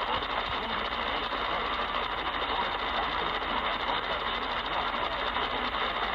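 Steady hiss and static of weak radio reception, with a faint, unintelligible voice wavering underneath the noise.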